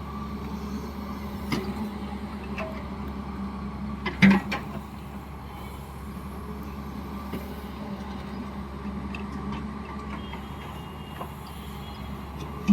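Digging machine's diesel engine running steadily, with a few short metal clanks and knocks, the loudest a double knock about four seconds in.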